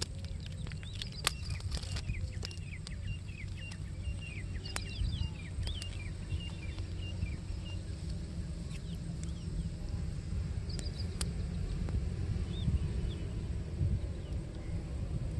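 Wind buffeting the microphone in a steady low rumble, with small birds chirping in quick, short calls, busiest in the first half, and a few sharp clicks.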